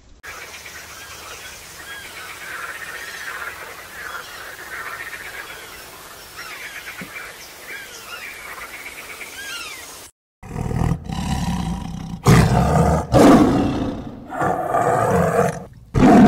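High-pitched squeaking chirps of bats, repeated quickly for about ten seconds. Then a tiger roars in about five loud bursts over the last six seconds.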